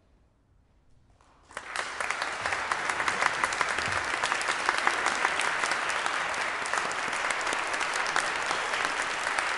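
About a second and a half of near silence, then an audience starts applauding and keeps clapping steadily.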